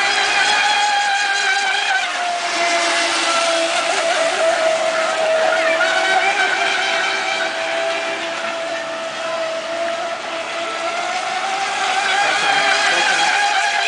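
Electric RC racing boats running at speed: the steady high whine of brushless outrunner motors. The pitch dips slightly about two seconds in and climbs again near the end.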